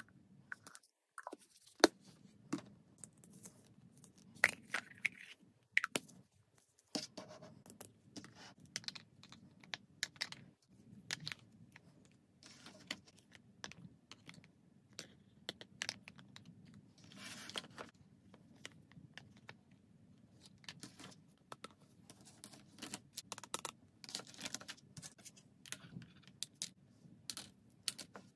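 Hard plastic toy tea-set pieces (cups, saucers, spoons and a teapot lid) clicking and tapping against each other and the table as they are handled and set down, in an irregular run of sharp clicks with brief scraping.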